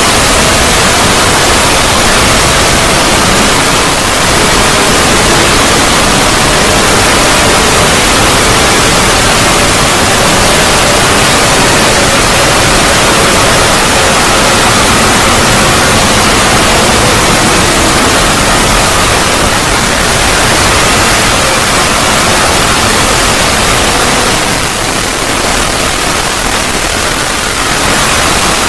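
Synthetic 'void' logo sound effect: a loud, steady wash of static-like noise with faint wavering tones running through it, dipping slightly in level near the end.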